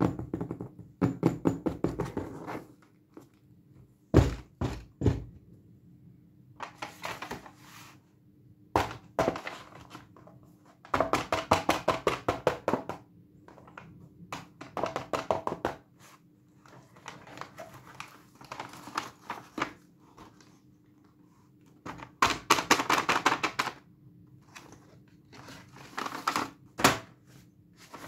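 Fingernails tapping and scratching in quick runs of a second or two on a padded vinyl cosmetic case and a cardboard doll box, with some crinkling as the doll's packaging is handled.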